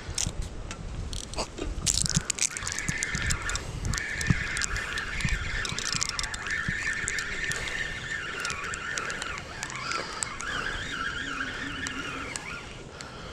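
Spinning fishing reel being cranked: a steady wavering whir from about two seconds in until near the end, with scattered clicks.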